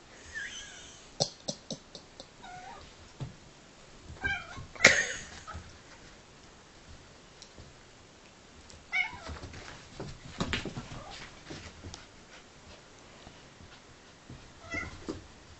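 A cat and a small dog play-fighting: several short, bending cries, the loudest about five seconds in, among sharp clicks and scuffling knocks from the tussle.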